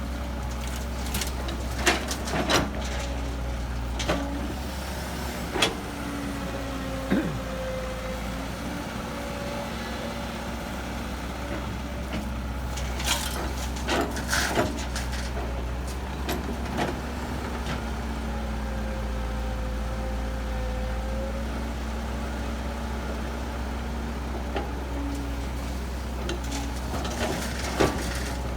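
Heavy diesel earthmoving machinery running steadily, its engine note rising and falling slightly, with sharp metallic clanks and knocks every few seconds.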